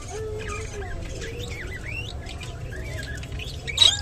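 Budgerigar chatter: quick chirps and warbling notes that glide up and down, with one loud, sharp squawk near the end.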